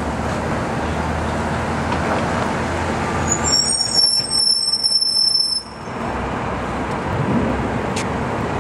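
Street traffic on a busy city avenue: taxis, cars and a city bus passing with a steady roadway rumble. Midway a high, piercing squeal of several tones lasts about two seconds, and near the end an engine pulls away with a rising note.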